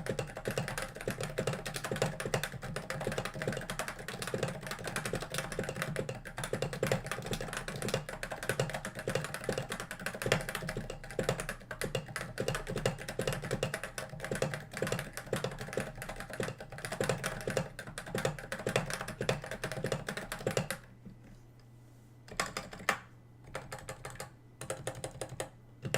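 Fast, continuous typing on a Topre-switch keyboard (a Cooler Master NovaTouch) fitted with MT3 /dev/tty keycaps. At about 21 seconds it thins to a few scattered keystrokes with short pauses between them.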